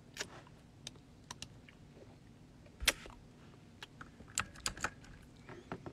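Irregular computer keyboard key presses and clicks, about ten scattered over several seconds, with one louder knock about three seconds in.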